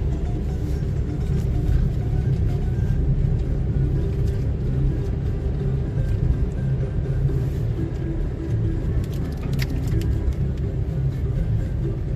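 Steady low rumble of a car on the move, with marimba background music over it.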